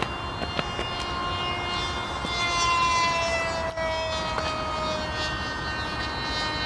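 Brushless electric motor of a radio-controlled delta-wing model plane whining in flight overhead, its pitch falling slowly as it passes, loudest about three seconds in. Wind noise on the microphone underneath.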